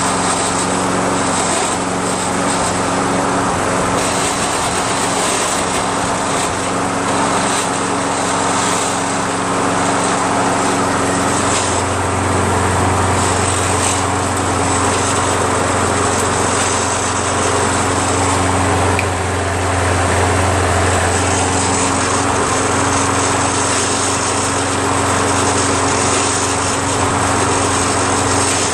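Briggs & Stratton single-cylinder engine of a Toro Recycler walk-behind mower running steadily, with a deeper hum coming in about a third of the way through and easing off later. The engine runs smoothly just after starting on a newly fitted carburetor but is smoking heavily as it burns off oil, which the owner takes for oil in the muffler or a hydro-locked engine.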